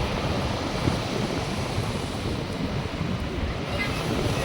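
North Sea surf washing steadily onto the beach, with wind buffeting the microphone in a low rumble.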